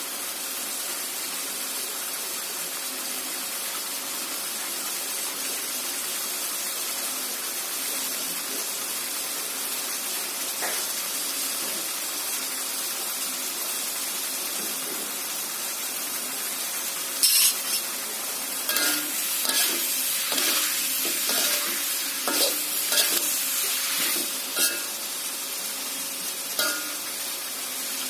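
Clams and tomatoes frying in a pan with a steady sizzle. From a little over halfway through, a spatula scrapes and clinks against the pan several times as the dish is stirred.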